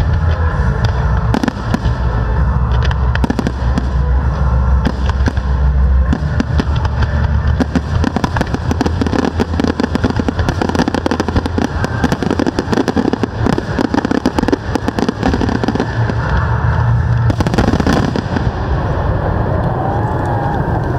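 Aerial fireworks going off in a dense barrage, shells bursting in quick succession amid continuous crackling. Deep booms are heaviest in the first few seconds, then give way to rapid sharp crackle and bangs.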